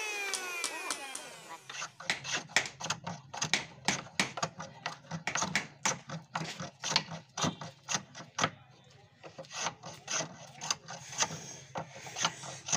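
An electric hand planer's whine falling away as it winds down after being switched off, gone within the first second or so. Then a wooden hand plane taking quick short strokes along a thin wooden strip, about three scraping strokes a second, with a brief pause partway through.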